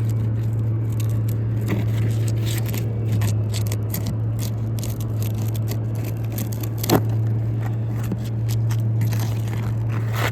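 Thin pry bar scraping under brittle, aged asphalt shingles as it breaks their seal strips, with many small crackles and crunches and one sharper crack about seven seconds in. A steady low hum runs underneath.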